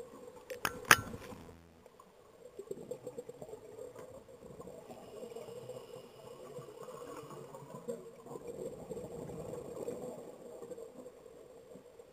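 Underwater sound through a camera housing: a few sharp knocks about a second in, then stretches of crackling bubble noise from scuba divers' exhaled breath.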